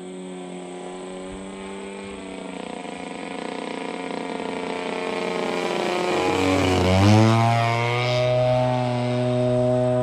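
Hangar 9 Timber 110 radio-controlled plane making a low pass: the steady drone of its motor and propeller grows louder, then drops sharply in pitch as it goes by about seven seconds in, and carries on at the lower pitch.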